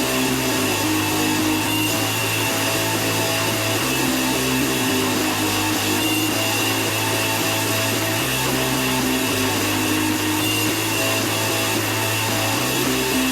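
Black metal music: a dense, steady wall of heavily distorted guitar, with the low notes shifting to a new chord every few seconds.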